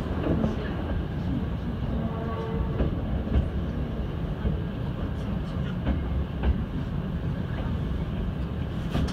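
Hankyu 7000-series electric train running at speed, heard from inside the passenger car: a steady low rumble of wheels on rail, with a few sharp clicks as the wheels pass over rail joints.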